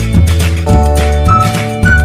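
Background music: a bright instrumental tune with a steady bass line and a flute-like melody.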